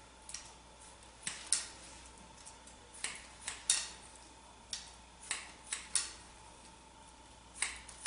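Hair-cutting scissors snipping through hair, about a dozen short, sharp snips that come in irregular clusters of two or three.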